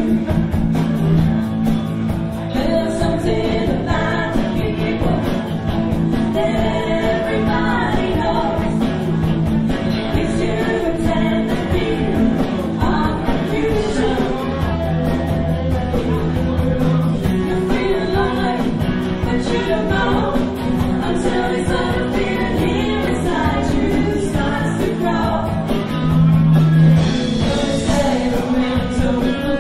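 A live band playing seventies-style pop-rock, with two women singing the lead together over bass guitar, electric and acoustic guitars and a drum kit, in a steady beat.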